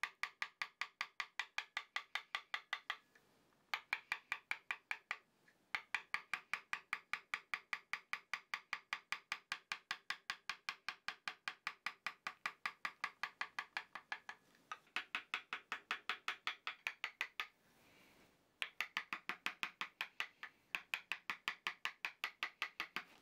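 Quiet background music: an even run of pitched, wood-block-like taps at about five a second, pausing briefly now and then.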